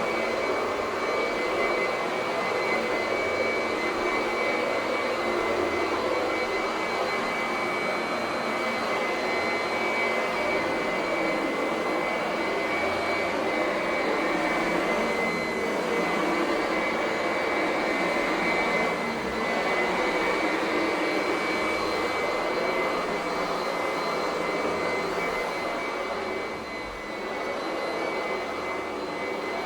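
Antique vacuum cleaner motor running steadily: a rushing hiss of air with a steady high whine over it. The level dips briefly near the end.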